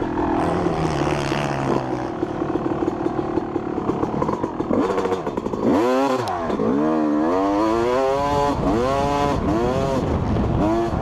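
Motocross dirt bike engine, heard close up from the rider's helmet. It runs rough and fairly steady at first, then from about halfway revs up in a series of rising sweeps, each dropping back before the next, as the bike accelerates along the track.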